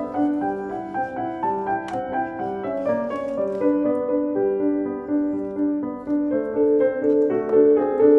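Piano music playing an even, flowing run of notes, with one sharp click about two seconds in.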